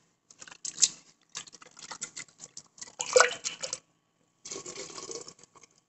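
Water swished and splashed around inside a steel mixer-grinder jar as a hand wipes the leftover rice batter off its walls, in irregular bursts with light knocks against the steel.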